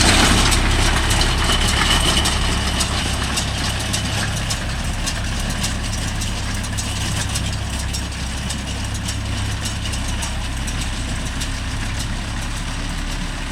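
Mahindra Yuvo Tech Plus 585 tractor's diesel engine running steadily while driving a baler, easing slightly in loudness over the first few seconds.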